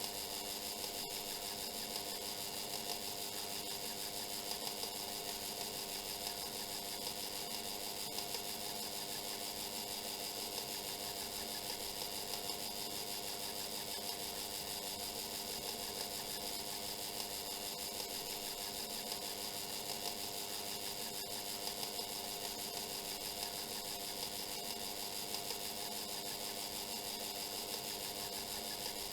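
Mechanical oven timer running down with a steady whirring buzz and a few faint clicks.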